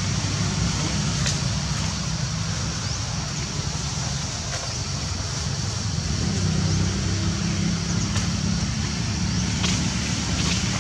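Steady low hum of a running motor, with a faint hiss of outdoor noise over it.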